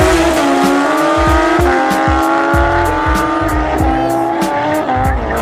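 Drag-racing sport motorcycles at full throttle, the engine note climbing steadily and dropping back at each upshift, about a second and a half in and again near the end. Music with a steady beat plays underneath.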